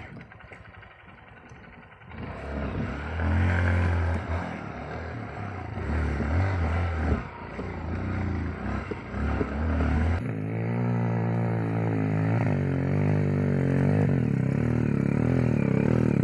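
150 cc single-cylinder trail motorcycle engine revving and easing off, starting about two seconds in, then running harder and louder from about ten seconds in, its pitch climbing and dropping with the throttle.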